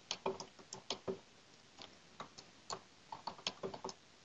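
Faint, irregular clicking of a computer mouse and keyboard, more than a dozen clicks, bunched in the first second and again near the end.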